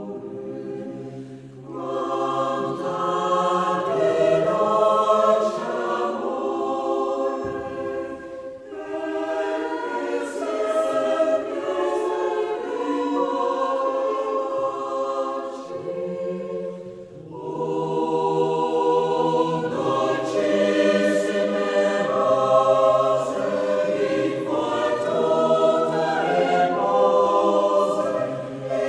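A choir singing unaccompanied in sustained chords, phrase by phrase, with short breaths between phrases.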